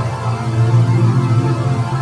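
Editor-made 'chorded' audio effect: several pitch-shifted copies of one sound layered into a dense, keyboard-like chord, held steadily with a strong low tone underneath.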